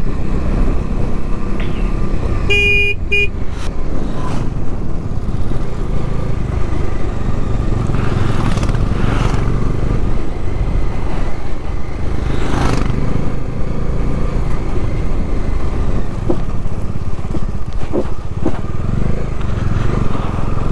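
Bajaj Dominar 250 single-cylinder motorcycle running steadily on the road, with a continuous low rumble of engine and wind. A vehicle horn toots briefly about three seconds in.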